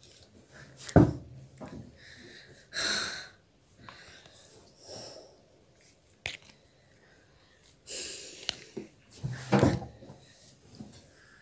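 A girl with her hands tied, taking puffed fuchka (pani puri) shells up in her mouth: short noisy breaths and mouth sounds broken by a few sharp knocks, the loudest about a second in.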